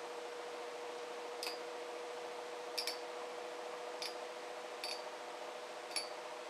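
Two Metal Fusion Beyblade tops spinning on a tray, a faint steady whirring hum, with about six sharp clicks as they strike each other.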